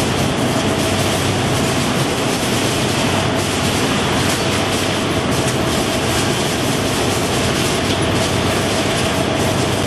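Belt and roller conveyors of a produce packing line running with boxes on them: a steady mechanical running noise with a fine clatter and a faint steady hum.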